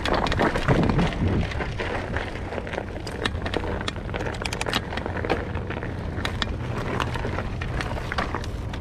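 Mountain bike riding over a rough dirt trail: a steady low rumble of tyres and wind, with frequent clicks and rattles from the bike. Louder jolts come in the first second and a half.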